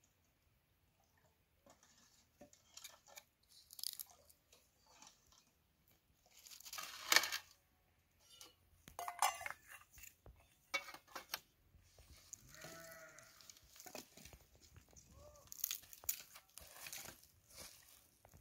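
Plastic tarp rustling and metal bowls clinking as they are handled, with a short pitched call that rises and falls, about two-thirds of the way through.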